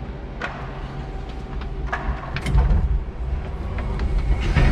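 Electric forklift running, heard from inside its cab: a steady low hum and rumble with a few sharp knocks and clicks, and heavier low rumbles about halfway through and near the end.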